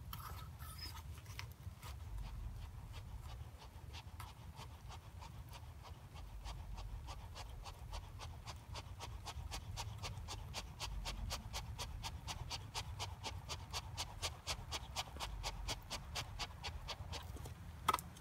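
A dog panting close to the microphone, quick even breaths about four a second, getting louder about halfway through.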